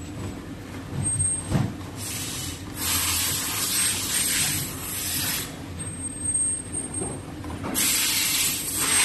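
Several bursts of hissing noise, each lasting one to three seconds, with a short knock about a second and a half in.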